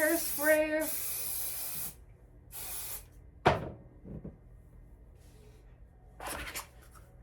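Hairspray being sprayed onto freshly crimped hair: a steady hiss lasting about two seconds, then a second short burst. A single sharp knock follows about a second later.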